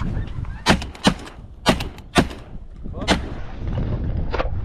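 A volley of shotgun fire from several goose hunters: about six shots in quick, irregular succession over four seconds, the last one fainter.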